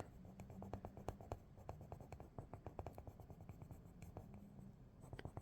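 Faint, quick scratching strokes of a colouring tool on paper, several a second, as a flesh-pink colour is rubbed over the drawing to blend the colours.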